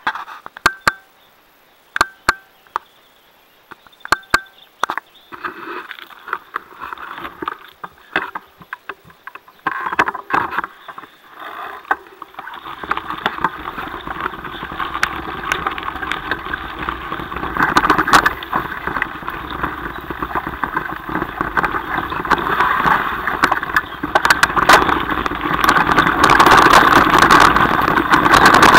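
Mountain bike on a gravel and stone track: scattered sharp clicks and knocks at first, then tyre rumble and wind noise on the microphone that swell steadily louder over the second half as the bike picks up speed.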